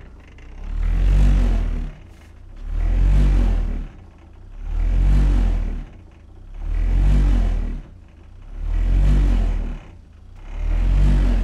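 Subwoofer driven by a TDA2050 amplifier playing a deep bass test tone that swings up and down between 25 and 50 Hz, swelling and fading about every two seconds, six swells in all. Things in the room vibrate and buzz along with each swell.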